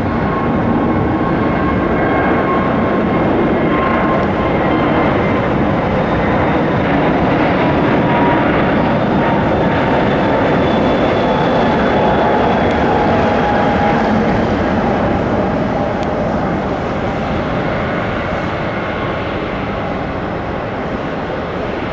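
Airbus A320neo turbofan engines at take-off thrust: a steady loud jet rush with a faint whine that slides slowly down in pitch as the aircraft passes. It is loudest around the middle and eases off near the end.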